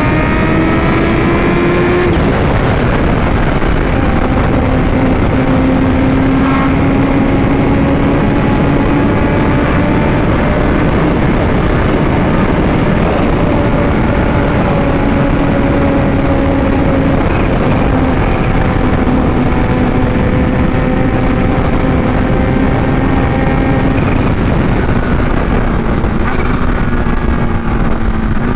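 Kawasaki Ninja H2's supercharged inline-four running hard through a newly fitted Vandemon exhaust at highway speed, with heavy wind rush over it. Held high in the revs to heat-cycle the new headers. The engine pitch climbs, then drops at one upshift about two seconds in, and stays fairly steady after that.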